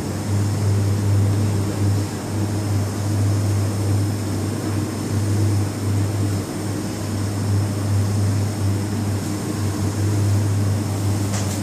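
Steady low machine hum with a whirring noise over it, unchanging throughout.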